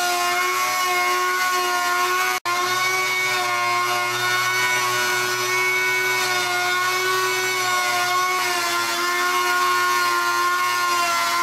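Handheld trim router running steadily as it trims overhanging formica laminate flush along a countertop edge: a steady whine that drops out for an instant about two and a half seconds in.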